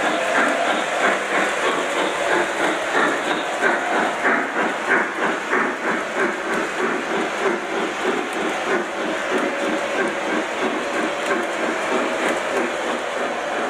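Lionel O-gauge Southern Pacific GS-2 Daylight steam locomotive model running past, its sound system giving a steady rhythmic steam chuff, with the wheels of its passenger cars rolling and clicking along the three-rail track.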